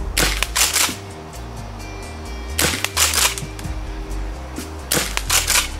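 Tokyo Marui KSG gas-powered airsoft pump shotgun fired three times, about two and a half seconds apart. Each shot is a short cluster of sharp cracks and clacks. Background music runs underneath.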